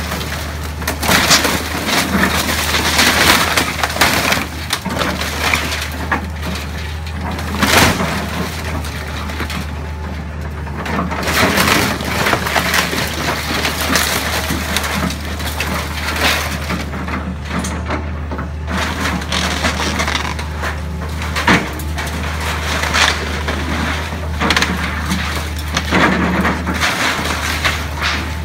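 A Hitachi excavator's bucket crushing and tearing apart a wooden house's roof and walls: repeated loud cracks, crunching and splintering of timber, shingles and siding as debris falls, over the steady low hum of the excavator's diesel engine.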